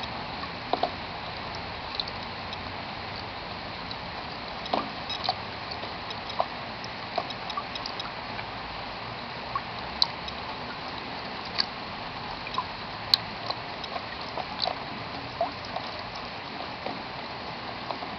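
Steady hiss of falling rain with scattered irregular drips and plinks.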